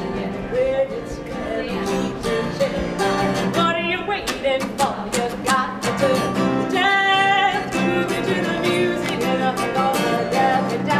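A song with strummed acoustic guitar and a woman singing over it in a high voice, holding long notes.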